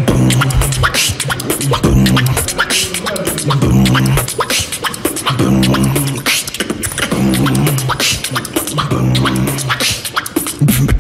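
Solo beatboxing: rapid vocal percussion of sharp clicks and snaps over a low vocal bass tone that comes back in notes about a second long every couple of seconds.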